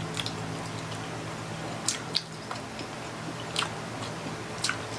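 Close-miked chewing of tender pork baby back ribs, with about five sharp wet smacks and clicks of mouth and lips spread through it. A steady low hum runs underneath.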